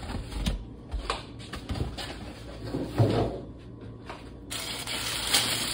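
Cardboard box lid being handled and lifted off, with scattered knocks and scrapes and a thump about three seconds in. About four and a half seconds in, tissue paper starts rustling and crinkling as it is handled.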